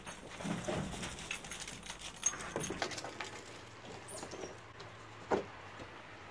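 A small dog's paws scrabbling and pattering on pavement in a quick dash, with scattered scratches and a couple of sharp clicks, about two and five seconds in.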